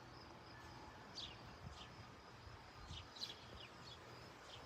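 Near silence outdoors with faint bird chirps: short high notes falling in pitch, scattered through a quiet rural background.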